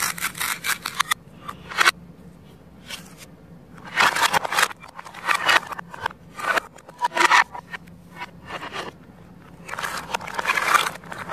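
Plastic toy fruit being handled on a wooden table: a dense crackly rasp in the first second as the halves of a cut toy orange are worked apart, then several short scrapes as the plastic pieces are slid and set down, the last run near the end.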